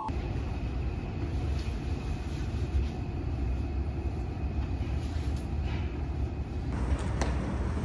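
Subway train running, heard inside the carriage: a steady low rumble with a faint steady whine. Near the end the sound changes and there are a couple of sharp clicks.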